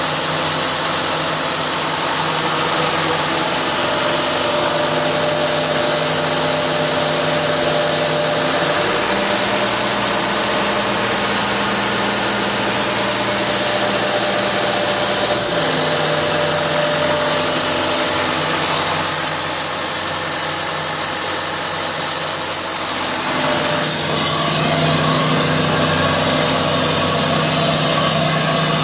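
John Deere 4039 four-cylinder diesel engine in a portable air compressor running steadily, its tone shifting a few times.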